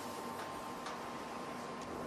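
Hot strip rolling mill running: a steady hiss with a constant hum, and a few faint ticks about half a second apart.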